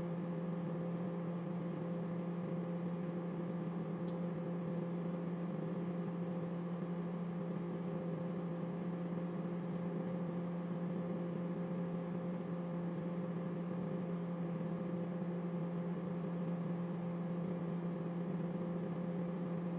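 Microwave oven running: a steady electrical hum with a low drone that holds unchanged throughout.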